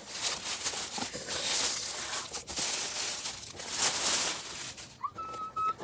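Packaging being torn open and crinkled by hand, in rustling surges, with a short high-pitched tone near the end.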